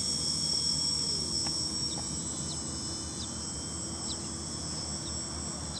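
Steady, high-pitched chorus of crickets, with short chirps repeating about once a second. Underneath runs a faint low hum from the distant quadcopter's motors, which dips in pitch about a second in and then holds steady.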